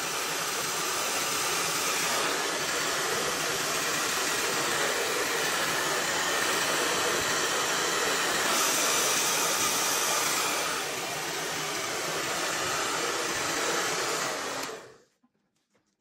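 Innoliving hair dryer blowing steadily into a freezer compartment to melt built-up ice, then switched off and stopping about a second before the end.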